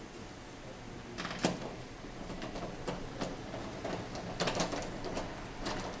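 Clicks and short scrapes of a screwdriver driving a T30 Torx screw into a tumble dryer's door hinge, starting about a second in, with the sharpest click soon after.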